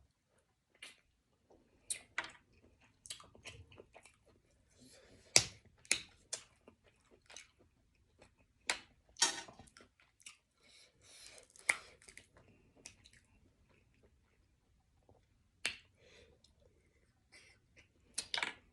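Close-up eating sounds from a seafood boil of shrimp and snow crab legs: chewing, lip smacks and sharp clicks, scattered irregularly with short quiet gaps.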